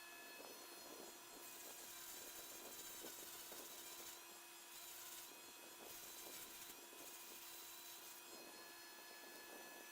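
Faint rubbing sounds in several short spells over a steady electrical hum: quiet hand work at a bench.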